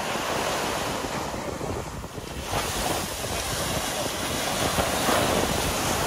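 Ocean surf breaking on a sandy beach and washing up the shore, with wind buffeting the microphone. The wash swells louder about two and a half seconds in as a wave breaks.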